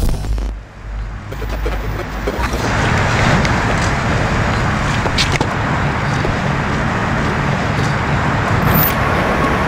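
A deep low rumble in the first second, then a Ford Fiesta rally car's engine running at a lumpy idle, with a few sharp clicks over it.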